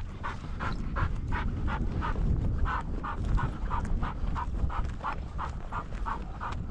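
Rapid, even panting, about three breaths a second, over a low rumble of wind and movement.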